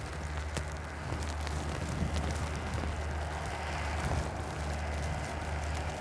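Blizzard wind buffeting the microphone: a steady low rumble under a hiss of wind and blowing snow.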